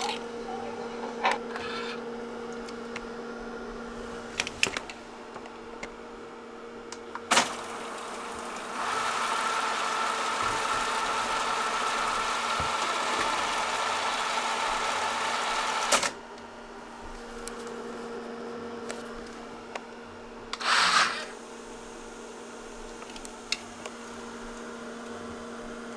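Tandberg IS10 student cassette decks clicking as their transport mechanisms switch, over a steady electrical hum. From about nine seconds in, a louder even whirring hiss runs for about seven seconds and cuts off with a sharp click.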